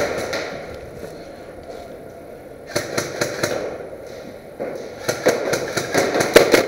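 Airsoft guns firing in strings of sharp pops: a short string about three seconds in, then a longer, quicker one of several shots a second from about four and a half seconds to the end.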